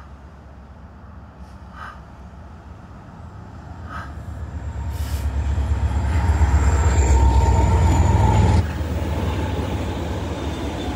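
BNSF manifest freight train approaching and passing, led by its diesel locomotives. A deep engine rumble builds over several seconds to a loud peak, with a thin steady whine over the loudest part, then drops off suddenly to a lower steady rolling sound near the end.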